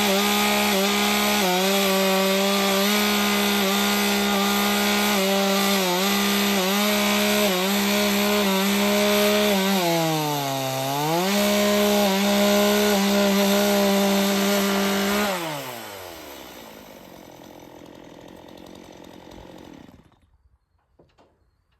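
Gas chainsaw on a chainsaw mill ripping a log lengthwise at full throttle, its pitch dipping briefly about halfway as it bogs down in the cut. Near the end the throttle is released and the engine falls to idle, then shuts off abruptly.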